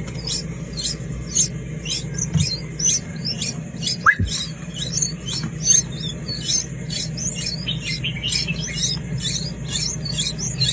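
Several nestling birds chirping, with many short, high peeps in quick succession over a steady low hum. There is a single low thump about four seconds in.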